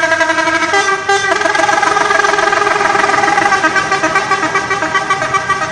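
Telolet multi-tone musical horn playing a loud, warbling melody, changing notes twice in the first second and a half and then holding a chord.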